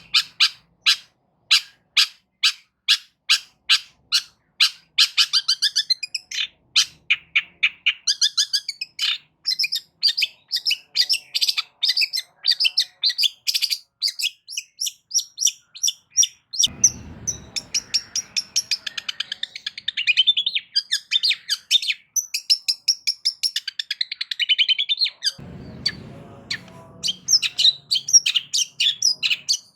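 Long-tailed shrike singing loudly: a fast run of sharp, evenly repeated notes at about three a second, then a dense, rapid chattering song full of mimicked phrases. A low rumble comes in briefly twice, about halfway through and again near the end.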